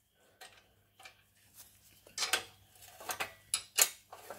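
Ratchet spanner clicking in short irregular bursts as the engine's exhaust bolts are worked loose, with a few faint metallic ticks before the clicking starts about two seconds in.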